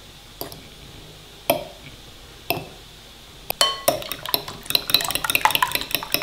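Metal fork clinking against a glass bowl while beating raw eggs: a few single taps about a second apart, then fast whisking from about three and a half seconds in, a rapid run of clinks against the glass.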